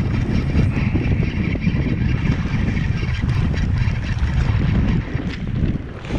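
Wind buffeting the microphone in a steady low rumble, over the whir of a spinning reel being cranked to reel in a hooked fish.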